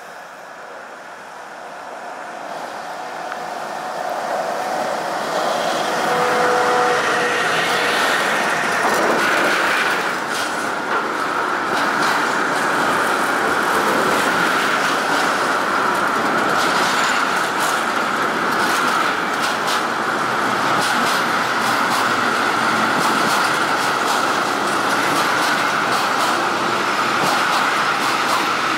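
Diesel locomotive approaching and passing close, growing louder over the first few seconds. A long string of loaded tank wagons then rolls by with steady rail rumble and rapid clicking of wheels over rail joints.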